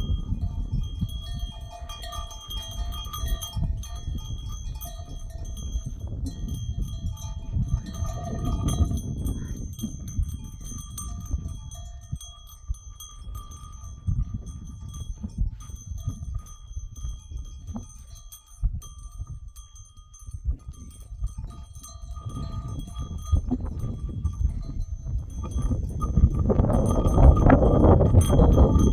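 Flock of sheep moving with their neck bells clinking and ringing, and sheep bleating. The sound grows louder over the last few seconds.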